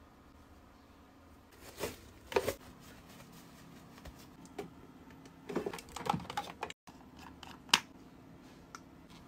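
Scattered light clicks and taps from hands handling small skincare items, in small clusters, with one sharper tick near the end and a brief total dropout of sound just before it.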